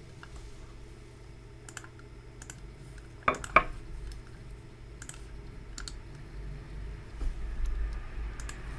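A few scattered clicks of a computer keyboard and mouse, about eight spread over several seconds, over a low steady hum.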